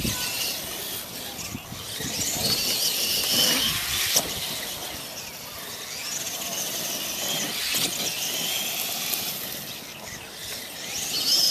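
Radio-controlled Clod Buster monster trucks' electric motors and gears whining as they drive over grass, the pitch rising and falling as they speed up and slow down. There is a sharp knock about four seconds in.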